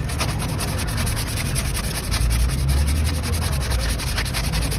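Abrasive scrubbing on a brake part in rapid back-and-forth strokes, many a second, over a steady low rumble.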